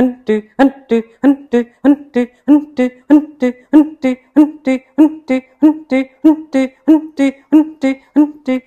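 Rapid Kapalabhati breathing: a person's forceful, pumping exhalations through the nose at about three strokes a second. Each stroke is short and sharp, with a brief hummed tone in it.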